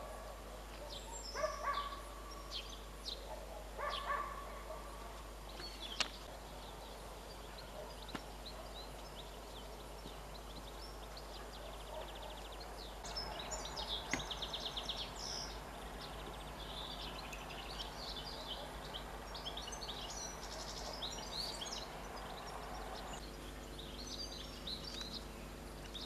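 Songbirds singing, with many short high chirps and calls over faint background noise. In the last few seconds a faint steady hum from the approaching ER9E electric train sets in beneath the birdsong.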